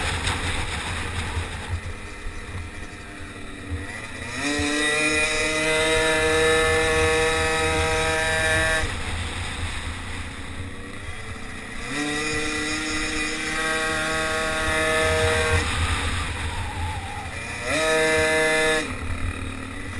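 Racing motorized bicycle's small engine revving up hard three times, held at high revs along the straights, and dropping away each time the throttle comes off for the corners.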